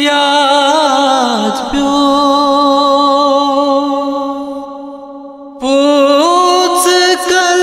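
A man singing a Kashmiri noha, a mourning lament, in long drawn-out notes. The first phrase slides down in pitch, holds, and dies away a little past halfway; a new phrase with wavering ornaments then starts.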